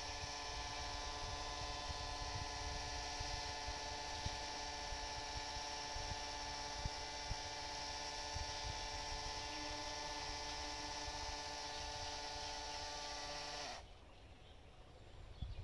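Small solar-powered spray-pump motor running with a steady high-pitched whine, cutting off suddenly near the end.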